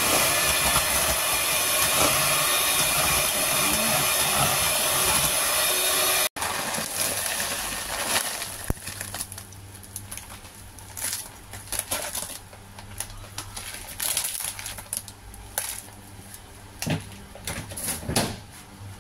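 Electric hand mixer running at speed, its beaters whisking chunks of butter and egg in a stainless steel bowl; it cuts off abruptly about six seconds in. After that, scattered rustles and light clicks as chocolate oat cereal is poured from a bag into the bowl.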